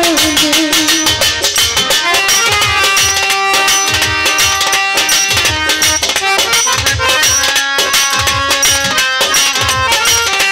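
Live Bengali folk (baul) band playing an instrumental interlude: a sustained, reedy keyboard melody over a steady hand-drum beat. The singer's voice trails off about a second in.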